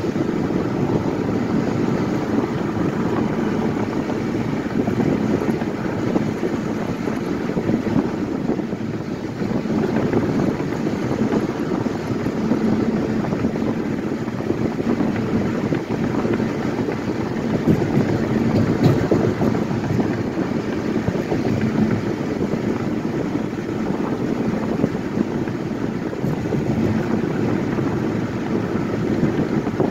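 Steady road noise of a car driving at speed: a low, even drone of tyres on asphalt and engine, with wind rush.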